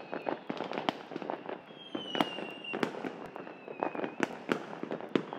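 Fireworks going off all around in a dense, irregular run of sharp bangs and crackles. A high whistle slides slightly downward about two seconds in, and again near four seconds.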